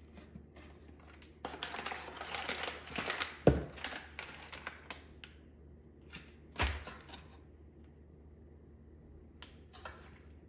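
Packaging being handled: rustling and crinkling for about three seconds, with a sharp knock partway through and a duller thump a few seconds later, then a few faint clicks near the end.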